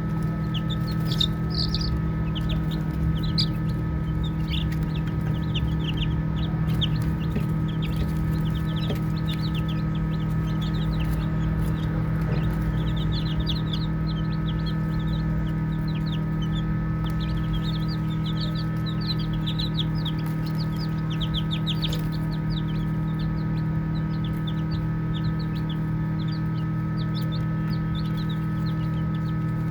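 Baby chicks peeping: many short, high chirps in quick runs, over a steady low hum.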